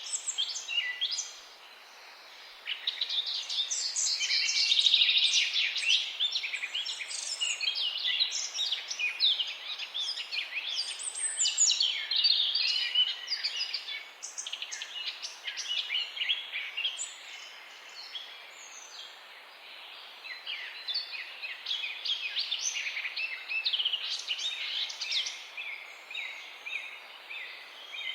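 A chorus of small songbirds chirping and trilling in quick, overlapping high notes, with a short lull about two seconds in and a quieter stretch past the middle.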